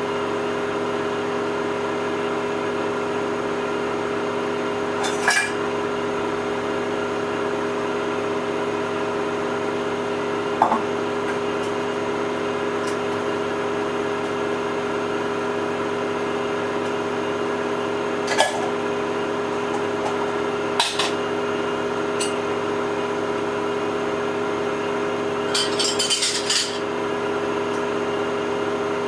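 Samsung washing machine running with a steady motor hum, with light clicks and clinks every few seconds and a short rattle of them near the end.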